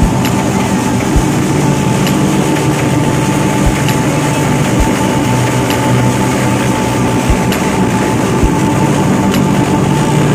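A train running along the track: a steady rumble and hum with wheels clacking over rail joints in pairs, a pair about every three and a half seconds.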